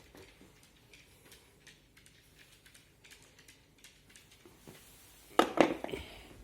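Light clicks and taps of plastic pressure-washer accessories and packaging being handled, with a brief, louder burst of handling noise about five seconds in.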